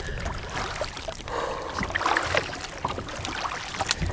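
Kayak paddle strokes: the double-bladed paddle dips into the water, with light splashes and drips at irregular intervals.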